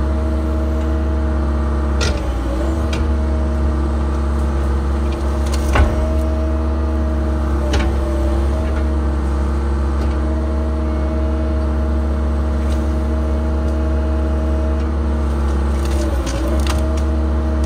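Cat 306 excavator's diesel engine running steadily, heard from inside the cab as the hydraulics work the boom and bucket. The engine note dips briefly under load a couple of times, and a few sharp knocks ring out in the first half.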